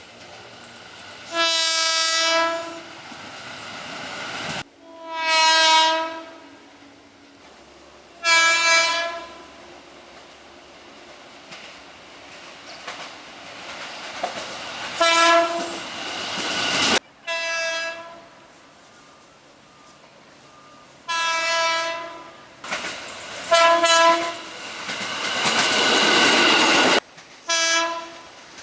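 KRL Commuter Line electric trains sounding their horns in the Semboyan 35 signal, a driver's greeting to a trackside railfan. There are about eight short blasts across several clips cut one after another, with the noise of a train running past near the end.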